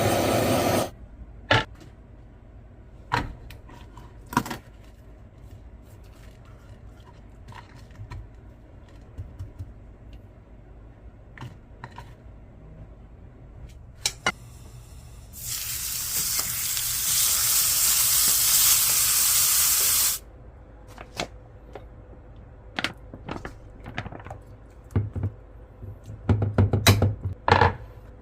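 Kitchen cooking sounds: scattered knocks and clatter of utensils and cookware, and a loud steady hiss of sizzling for about five seconds in the middle that cuts off suddenly.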